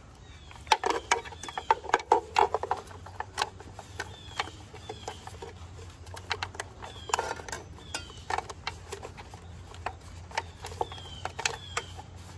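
Irregular clicks, taps and rustles of plastic wire connectors, cables and a small plastic balancer box being pushed and tucked into an e-bike's metal battery housing by hand. The clicks come in a busy cluster in the first few seconds, then scattered.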